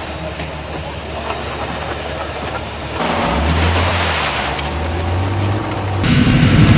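Off-road 4x4 engines running under load in mud and water, the pitch rising and falling with the throttle. The sound gets louder in abrupt steps, about three seconds in and again near the end, where a louder engine takes over.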